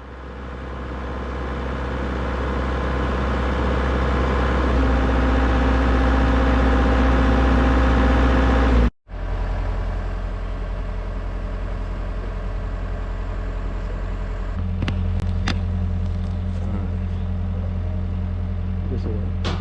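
Excavator's diesel engine running steadily, fading in at the start and cutting out for a moment about nine seconds in. A few sharp clicks come near the end.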